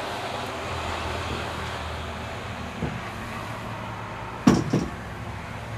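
Two knocks inside a steam locomotive cab over a steady low background rumble: a light knock about three seconds in, then a sharp double knock, the loudest sound, about a second and a half later.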